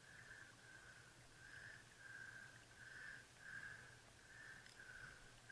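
Faint whir of a baitcasting reel being cranked, pulsing about twice a second with the turns of the handle, as a hooked fish is reeled in.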